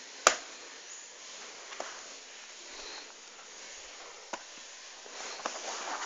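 Handling noises as an HP Mini netbook is turned over on a bedsheet: one sharp knock of the plastic casing about a third of a second in, a few lighter taps, and fabric rustling near the end.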